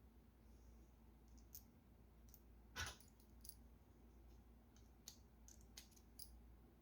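Faint, scattered small clicks of metal parts being handled while a fishing reel's handle knob is refitted with its ball bearings and washers, one sharper click about three seconds in.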